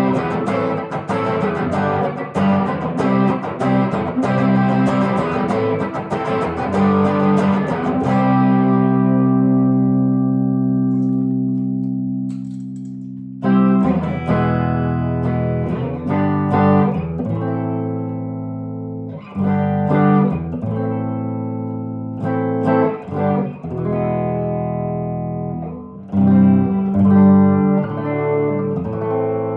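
1968 Gibson SG Junior electric guitar, its single P90 pickup, played: fast strummed chords for the first eight seconds or so, then a chord left ringing and fading, then chords struck every few seconds and allowed to ring out.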